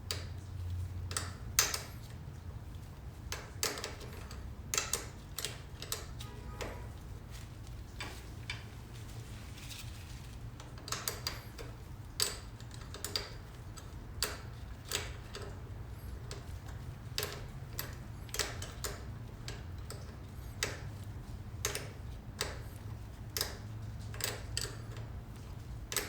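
Irregular light metallic clicks and taps of hand tools and brake-line fittings being worked by hand, over a low steady hum.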